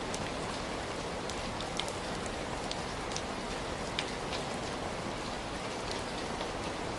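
Heavy rain falling steadily: a dense, even hiss with individual drops ticking sharply through it here and there.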